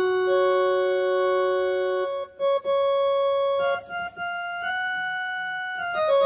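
Casio CTK-2550 portable keyboard playing a slow line of long held notes in one of its built-in tones. The notes hold steady without dying away and step upward in pitch, with brief breaks between them.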